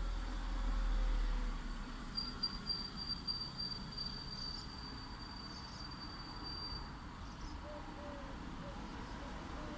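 Light city traffic: a vehicle's low rumble passes and fades about a second and a half in, over a steady hum of distant traffic. From about two seconds in, a high, rapid trill runs for about five seconds.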